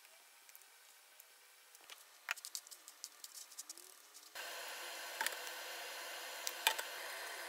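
Scattered light clicks and rustles as pieces of codfish are pressed into breadcrumbs. Then, about four seconds in, a steady sizzle of hot oil in a frying pan starts suddenly, with a few sharp pops.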